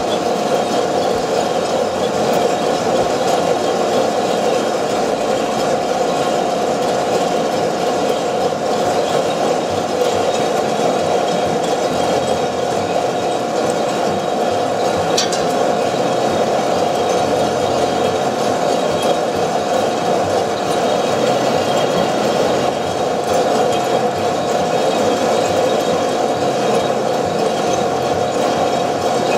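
Probat two-barrel sample coffee roaster running with a steady hum from its turning drums and air blower, beans tumbling inside, mid-roast as the beans turn brown, before first crack.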